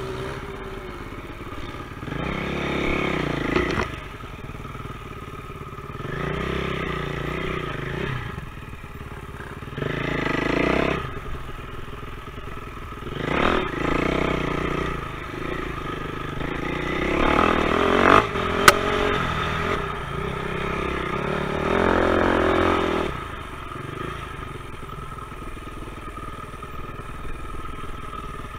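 Dirt bike engine on a forest trail, the throttle opening and closing so the engine revs up and drops back every few seconds, with one sharp click a little past the middle.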